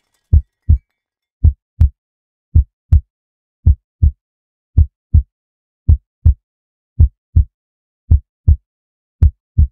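Heartbeat sound effect: slow, steady pairs of low thumps (lub-dub), about one pair a second, with silence between them.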